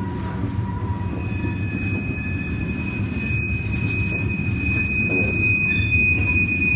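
Train rolling by with a steady low rumble, and a thin, steady high-pitched wheel squeal setting in about a second in and growing stronger as it gets louder.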